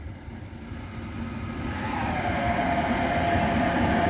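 A lone locomotive approaching under braking, its rumble growing louder. About two seconds in, a brake squeal sets in, sliding down in pitch and then holding a steady tone.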